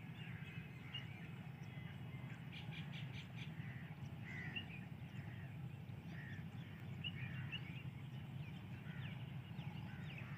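Birds calling in open country: many short chirps and calls, with a quick run of repeated calls about two and a half seconds in, over a low steady rumble.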